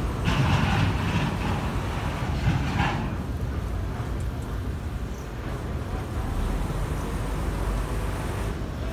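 Steady low engine rumble from a car ferry and the motorbikes moving off its ramp, with a busier stretch of engine noise and voices in the first three seconds.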